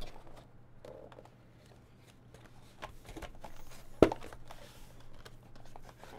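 Faint rustling and handling of a box of baseball trading cards being opened, with small clicks and one sharp knock about four seconds in, the loudest sound.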